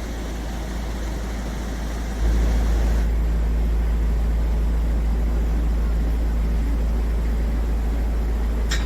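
Narrowboat diesel engine running steadily as a low rumble, getting louder about two seconds in. A couple of short clicks come near the end.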